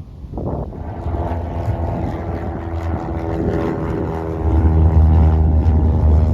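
Light propeller airplane's piston engine running and drawing nearer, getting louder, with a sharp rise in level about four and a half seconds in.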